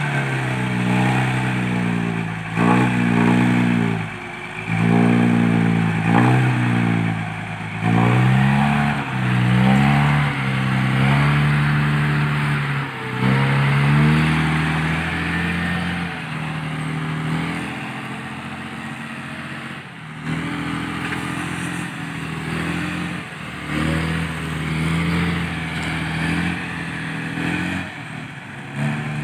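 Diesel engine of a dump truck revving up and down in repeated surges as the truck works in loose sand, then running more steadily past the middle.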